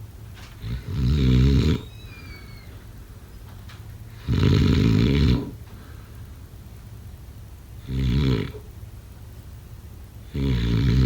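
Snoring during sleep: four loud snores, each about a second long, about three seconds apart.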